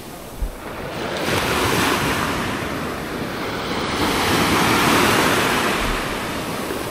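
Sea surf washing onto the shore, swelling and loudest about five seconds in, with wind buffeting the microphone and a brief thump near the start.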